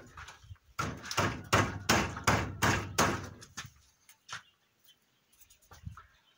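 Repeated bangs of wood on wood from a newly built wooden goat stall, about eight sharp knocks in quick succession over some three seconds, then a couple of faint knocks.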